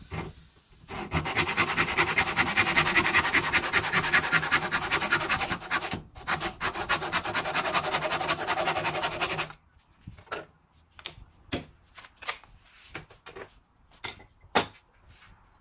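Hand saw cutting through a strip of wood, in quick back-and-forth strokes with one short pause. The sawing stops about two-thirds of the way in, followed by scattered light knocks and clicks.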